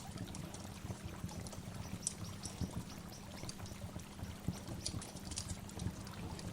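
Waterfall: a steady rush of falling water, with frequent short splashes and drips flicking over it.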